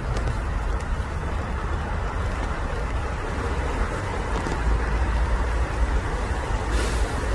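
Steady outdoor background rumble and hiss with a strong low end, with a brief higher hiss near the end.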